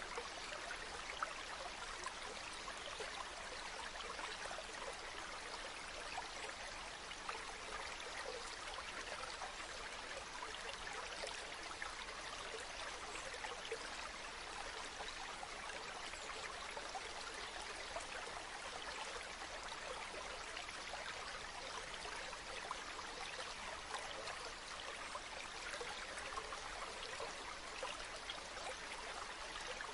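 A river flowing steadily, with rushing and babbling water.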